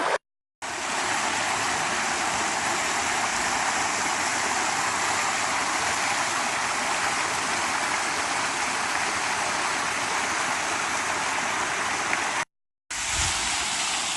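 Steady rushing of a creek's small waterfall splashing over rock. It drops out to silence twice, briefly.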